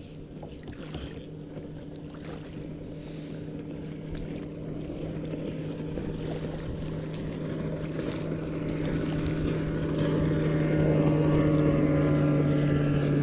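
Motorboat engine running with a steady hum that grows louder over about ten seconds as the boat comes closer, then holds.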